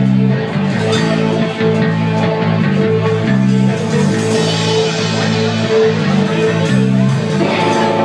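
Live rock band playing: a bass guitar line of changing notes over drums and cymbals, with electric guitar and a keyboard holding tones above. Fresh sustained chords come in near the end.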